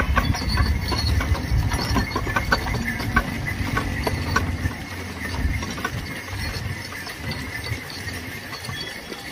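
Bullock cart moving along a road: the bullocks' hooves clop on the surface over a low rumble of the cart's wheels. The clops are thickest in the first half and thin out later.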